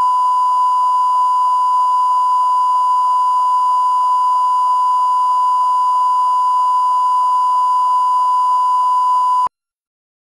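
Steady 1 kHz reference test tone of a bars-and-tone video leader, one unwavering beep at constant pitch and level. It cuts off suddenly near the end.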